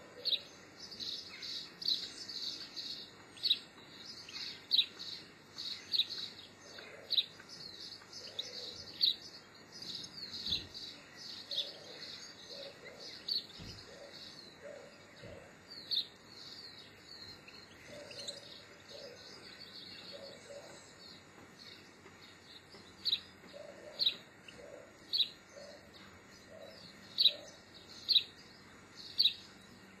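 Small songbirds chirping, with dense twittering in the first half and sharp single calls about once a second near the end.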